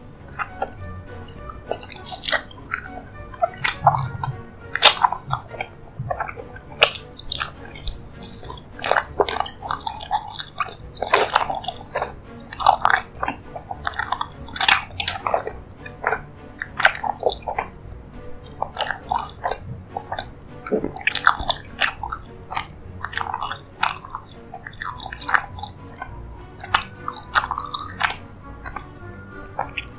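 Close-miked chewing and biting of a soft dessert: wet smacking and clicking mouth sounds coming irregularly, several each second, over quiet background music.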